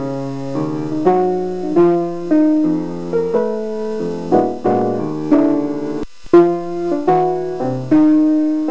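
Background piano music: slow chords and single notes, each struck and then fading, with a brief break about six seconds in.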